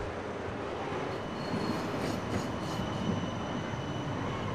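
Siemens Combino Plus low-floor tram running past, a steady rumbling rail noise with a faint, high-pitched steady whine.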